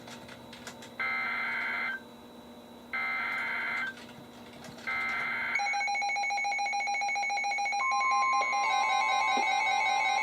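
NOAA Weather Radio SAME header: three rasping digital data bursts, each about a second long and a second apart. As the third ends, a bank of weather alert radios sets off its alarms in overlapping pulsed beeps, and about eight seconds in the steady 1050 Hz warning tone joins them, marking the start of a new warning.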